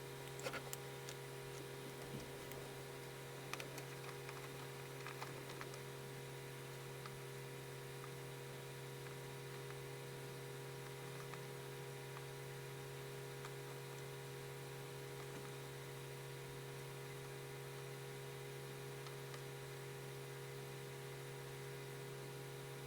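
A steady electrical hum, with a few faint scratching strokes of a pencil on paper in the first six seconds or so.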